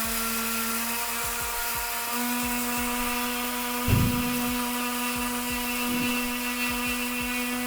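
Atomberg Zenova mixer grinder's 550 W BLDC motor running steadily at high speed, grinding dry chillies, coriander seeds and dal into powder. It gives an even whine, with one louder knock about four seconds in.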